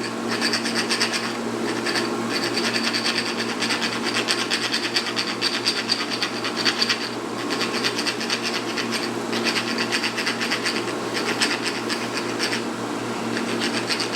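Thread file rasping back and forth over the threads of a 3/4-16 threaded rod in runs of rapid strokes, with short pauses about a second and a half in, around the middle and near the end. It is cleaning up threads rolled over when the end was chamfered, so the nut will start.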